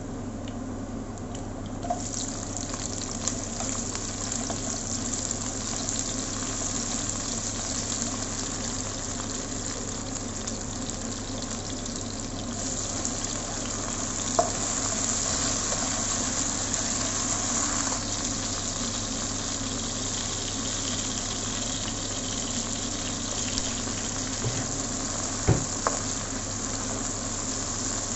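Chopped garlic, onion, tomato and peppers sizzling in hot oil in a nonstick pan, stirred with a plastic slotted spatula; the sizzle grows stronger about two seconds in. A few light knocks of the spatula against the pan.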